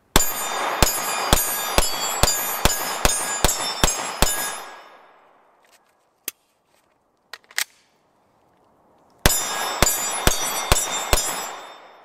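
Taurus G3 Toro 9mm pistol firing a fast string of about ten shots, then a few faint metallic clicks, then a second string of about five shots, each shot ringing briefly. The rounds are fed from old PT24/7 magazines, which cycle the gun without a stoppage.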